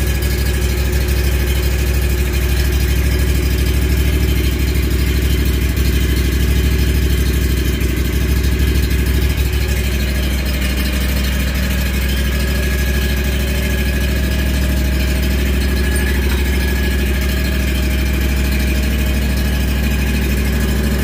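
Wright Stander Intensity stand-on mower's engine running steadily, with a slight change in its sound about halfway through. The new drive belt and idler pulley run without scraping or squealing: very quiet, the sign of a good belt repair.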